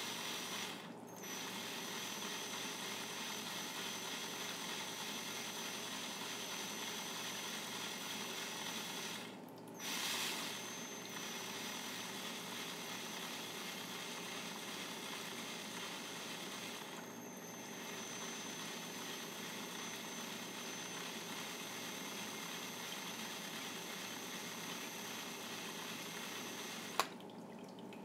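Wood lathe running steadily with a faint high whine over a hiss, dipping briefly about every eight seconds. A sharp click near the end.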